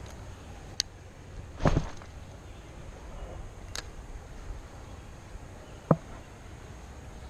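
A few brief clicks and knocks from handling a fishing rod and reel while retrieving a lure: two thin high clicks, a louder knock about a second and a half in and another sharp one near six seconds, over a steady low rumble.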